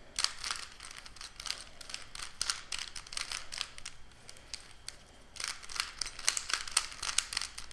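Rubik's Cube being turned rapidly by hand: a quick run of plastic clicks and clacks from the layers, easing off for a couple of seconds in the middle, then picking up again.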